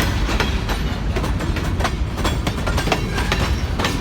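Freight train rolling past close by: a grain train's covered hopper cars running over the rails, with a steady low rumble and rapid, irregular clicking of steel wheels over rail joints.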